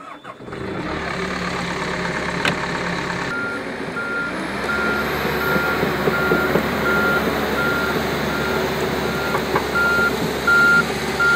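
Komatsu PC160LC tracked excavator running at close range, its diesel engine steady. From about three seconds in, its warning alarm beeps about twice a second, the signal that the machine is travelling or swinging.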